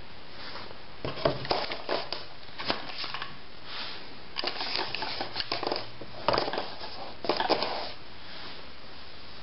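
Handling noise: irregular clusters of rustling, scraping and light clicks as the camera and the gear in a foam-lined hard case are moved about, over a steady background hiss; the clicks and rustles start about a second in and stop near the end.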